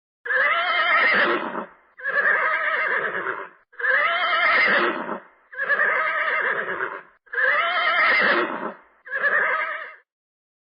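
An animal calling: six long, wavering calls of about a second and a half each, one after another with short gaps.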